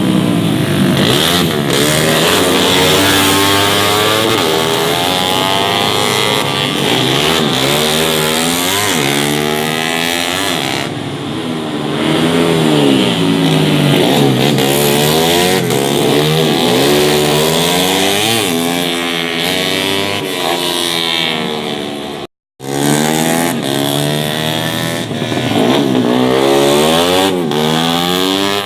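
Several tuned four-stroke 150 cc underbone racing motorcycles revving hard through the gears, their overlapping engine notes repeatedly rising with acceleration and dropping at each shift as the bikes pass. The sound cuts out for an instant about two-thirds of the way through.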